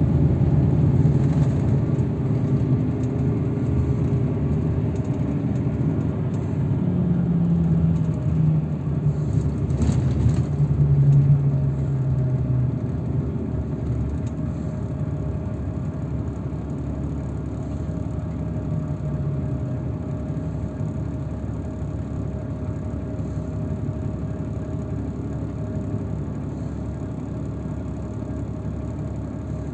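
Shuttle vehicle under way: steady engine and road rumble, louder with a shifting engine note for about the first twelve seconds, then easing to a quieter, even drone.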